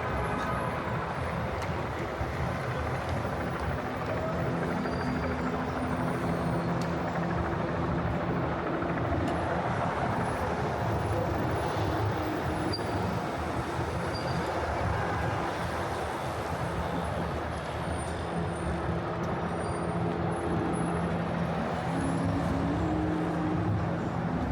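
Manhattan street traffic ambience: vehicles running past, with the steady low hum of engines idling and pulling away.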